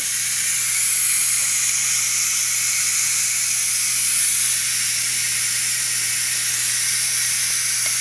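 Ninja Foodi pressure cooker venting steam through its pressure-release valve in a quick release at the end of pressure cooking: a steady hiss.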